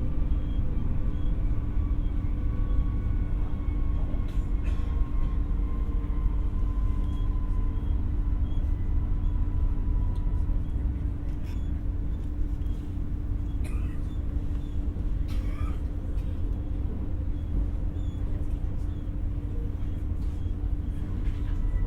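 Interior running sound of an X60 (Alstom Coradia Nordic) electric multiple-unit commuter train: a steady low rumble with a faint electric whine that sinks slowly in pitch, and a few short knocks from the running gear.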